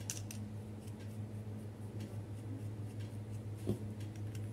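Small handling sounds of a mini rotary tool's plastic collet nut being unscrewed by hand: faint ticks and rubbing, with one sharper click near the end. A steady low hum runs underneath.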